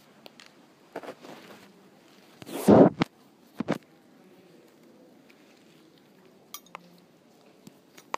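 Brief handling noises in a pause between words: a short noisy scrape or rustle about two and a half seconds in, a sharp knock about a second later, and a few faint clicks near the end.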